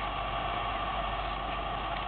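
Steady hiss with a low hum and no distinct sounds: background noise.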